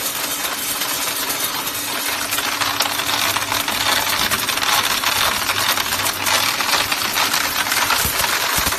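Belt-type mineral colour sorter running: a steady low hum under a dense, continuous patter of small mineral pieces clicking and rattling as they feed through and drop.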